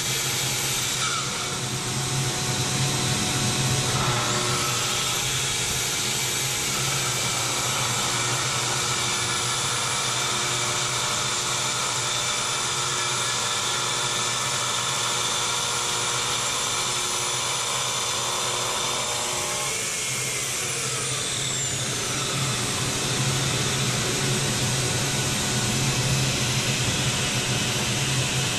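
Festool TS 75 plunge track saw ripping along its guide rail through a heart-pine plank over two inches thick, with a shop vacuum drawing the dust through a hose attached to the saw. The saw's high whine dips and recovers twice in the first few seconds and falls in pitch about two-thirds of the way through, while the steady vacuum hum keeps going.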